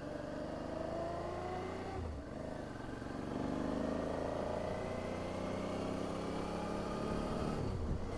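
Motorcycle engine accelerating under the rider, its pitch climbing steadily through each gear. It breaks off and drops about two seconds in and again near the end as it shifts up.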